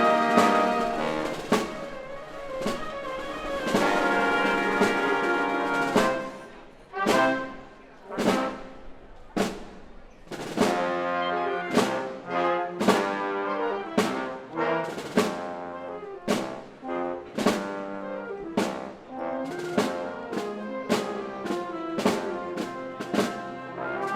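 Symphony orchestra playing with the brass prominent, over repeated sharp percussion strikes that come thicker and more regular from about ten seconds in.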